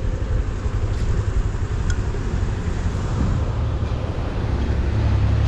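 Motor scooter engine running steadily at low street speed, with a low hum under rumbling wind and road noise.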